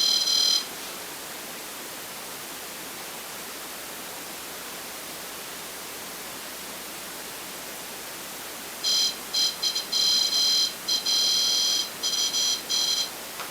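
High electronic alarm tone from a ghost-hunting detector gadget. It sounds for a moment at the start, then comes back about nine seconds in as a stuttering run of beeps that cut in and out for about four seconds. Steady hiss lies between.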